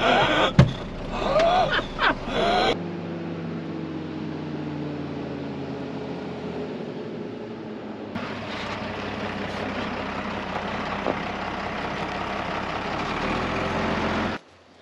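A man's short, loud wordless exclamation in a truck cab. Then a Mercedes-Benz 4x4 expedition truck's diesel engine runs steadily as the truck drives over grass, its pitch falling slowly over a few seconds.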